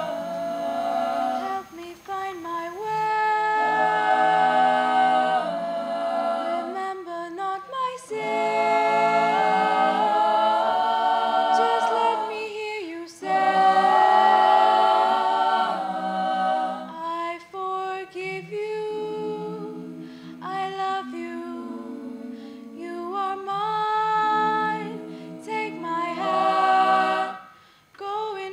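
A choir of mixed voices singing a cappella in harmony, in long held phrases with short breaks between them.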